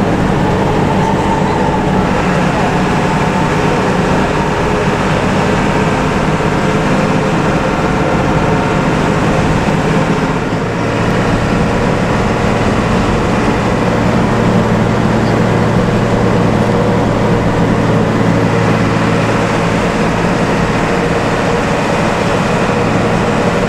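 Bus engine running steadily with tyre and road noise, heard from inside the moving bus, with a brief dip in level about ten seconds in.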